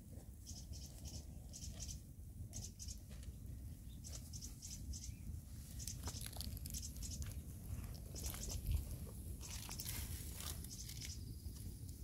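Hands picking over and tearing fresh wild greens into a plastic bowl: an irregular run of small crackles and rustles, over a steady low rumble.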